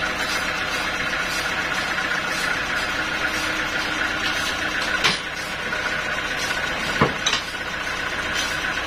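Band sawmill machinery running steadily without cutting, a constant mechanical hum, with two sharp clanks about five and seven seconds in as the log is shifted on the carriage.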